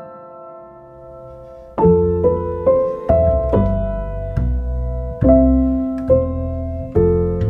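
Background piano music. A held chord dies away, then about two seconds in a run of struck chords over low bass notes begins, one every half second or so.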